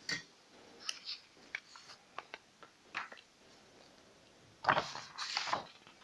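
Sheets of paper being handled and moved: a few light ticks, then about a second of paper rustling near the end.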